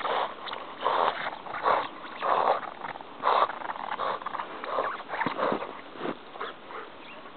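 Border Collie panting, a run of breathy puffs about one to two a second.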